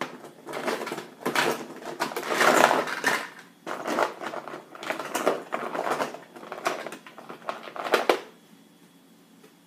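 Plastic toys and containers being handled and rummaged through, clattering and rustling in irregular bursts that stop about eight seconds in.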